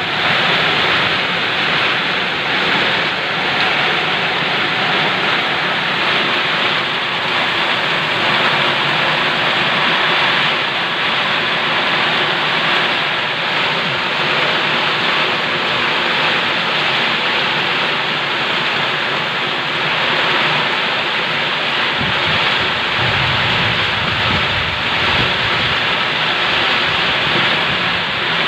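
Heavy tropical downpour in a windstorm: a loud, steady, dense hiss of rain, with a low wind rumble on the microphone joining in about two-thirds of the way through.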